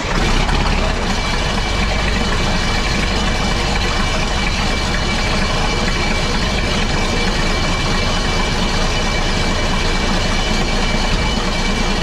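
Diesel tractor engine idling steadily just after a cold start on a chilly morning of about 42 degrees, started without glow plugs or any other cold-start aid.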